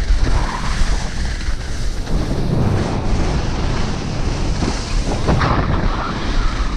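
Wind buffeting the action camera's microphone during a fast ski descent, a continuous low rumble, with the hiss and scrape of skis sliding over the snow.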